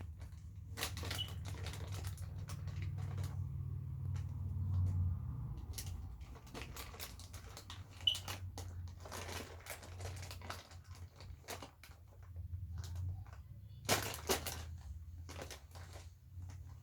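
Irregular clicks and crinkly rustling of close handling, over a low steady hum, with a sharper click about eight seconds in and another near fourteen seconds.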